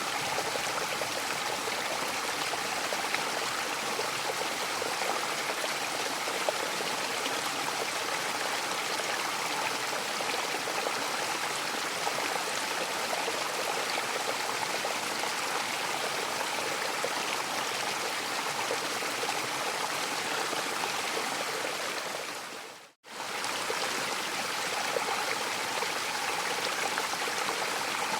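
Mountain waterfall rushing steadily, a dense even hiss of falling water. About three-quarters of the way through, the sound briefly fades out to silence and comes straight back.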